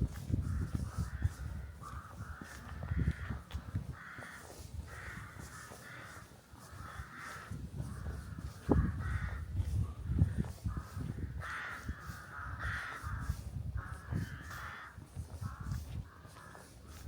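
Crows cawing, a long run of harsh calls repeating every half second or so, with a short pause partway through, over a low rumble.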